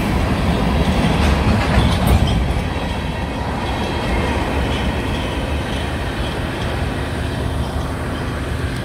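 Freight train cars rolling past on the track: a steady, loud rumble and clatter of steel wheels over the rails.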